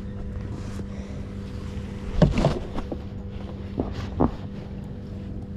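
A few knocks and thuds in a fishing boat, a loud cluster about two seconds in and two more near four seconds, over a steady low hum.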